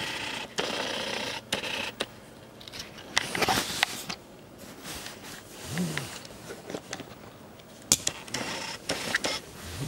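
Irregular clicks, knocks and rustling of close handling noise, as a camera or recording device is handled and set up, with a brief low tone that rises and falls about six seconds in.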